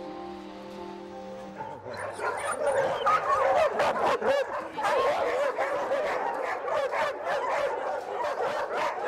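Soft music ends about two seconds in, and dogs start barking and yelping in a dense, overlapping clamour.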